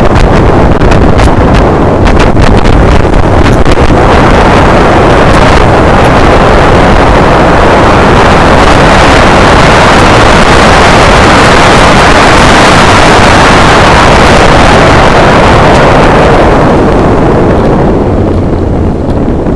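Loud wind buffeting on a motorcycle-mounted action camera's microphone at road speed, a dense rushing noise with no engine note standing out. It swells through the middle and eases off near the end.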